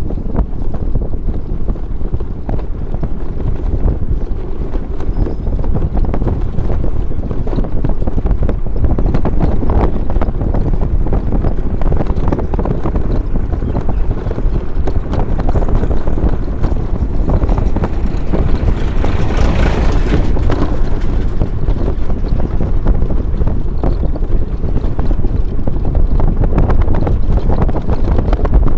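Wind buffeting the microphone over the rumble of a vehicle travelling on a rough road, with frequent small knocks and rattles. A stronger rush of hiss comes about two-thirds of the way through.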